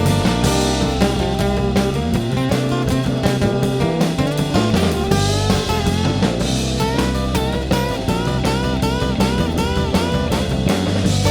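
Rock band playing an instrumental break of guitar, bass and drums. From about halfway in, a guitar lead plays a run of repeated bent notes that rise and fall in pitch.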